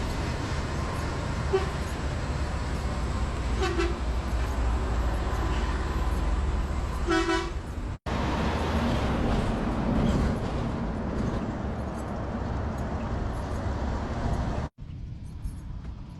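Heavy road traffic with large trucks passing close, a steady engine rumble and road noise, with a few short horn toots, the last and loudest about seven seconds in. The sound drops off sharply twice, near halfway and near the end, and is quieter after the second drop.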